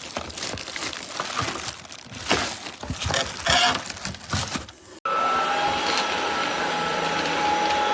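Irregular knocks, clicks and rattles, then about five seconds in a sudden change to a cordless stick vacuum cleaner's motor running steadily with an even whine.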